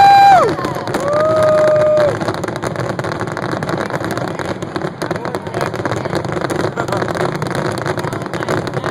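A horn blast trails off with a falling pitch just after the start, and a second, lower horn blast sounds about a second in. Then comes a steady crackle of many small fireworks pops and crowd noise.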